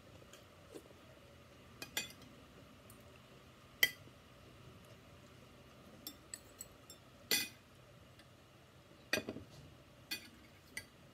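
Metal spoon and fork clinking and tapping against ceramic plates and a glass soup bowl while eating: a dozen or so irregular clinks, a few of them loud.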